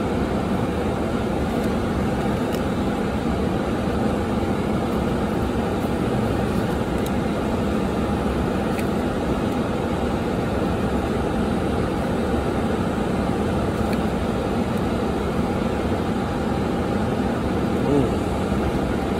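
Steady rushing hum of a running car heard inside its cabin, the climate fan and engine running without change. A few faint ticks come from the trading cards being handled.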